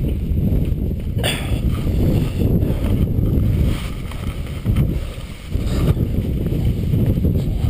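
Wind buffeting the camera microphone in a gusty, low rumble that swells and dips, with a brief sharp scrape about a second in.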